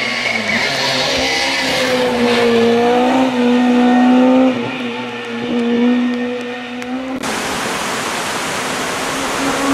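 Hill-climb racing car's engine under hard acceleration, its pitch holding high and dipping briefly a few times at gear changes. About seven seconds in the sound cuts abruptly to a noisier stretch, with another engine's note rising near the end.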